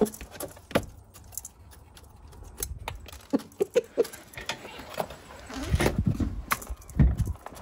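Scattered sharp taps and clicks of a rooster pecking grain from a bowl inside a plastic pet carrier. Near the end, a metal carabiner clinks against the carrier's wire door as it is handled, with heavier bumps.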